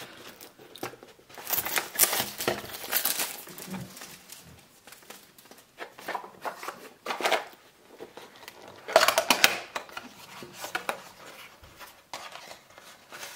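Rustling and scraping of a small cardboard card-deck box being opened and handled, its flaps and contents sliding and tapping, in irregular bursts that are loudest about two seconds in and again about nine seconds in.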